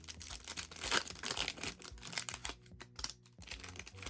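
Trading-card pack wrapper crinkling and being torn open, with cards handled: dense crackling for about three and a half seconds, loudest about a second in, then dying down.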